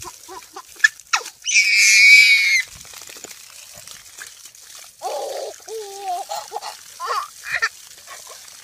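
Water from a garden hose spraying and splashing, with a toddler's loud, high-pitched squeal of laughter about a second and a half in and more giggling from about five seconds on.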